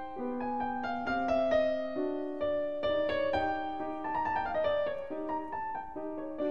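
Solo piano playing a classical piece: a melody of separate notes over lower accompanying notes, at a moderate pace.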